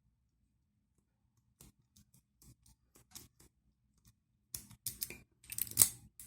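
Scattered faint clicks, then a denser run of louder clicks and scrapes about four and a half seconds in, from handling and working an Assa Ruko 2 padlock while repinning and testing it.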